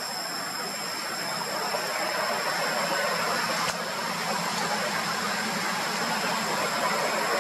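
Steady outdoor background noise: an even hiss with a constant high-pitched whine running through it, and one faint tick midway. No monkey calls.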